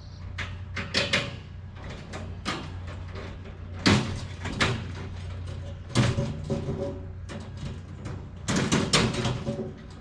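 Galvanized steel raised-bed panels and their bolts clanking and rattling as the bed is tightened up, with sharp metal knocks about four and six seconds in and a quick cluster of rattles near the end.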